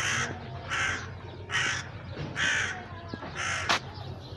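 A crow cawing five times, a little under a second apart, with a sharp click near the end.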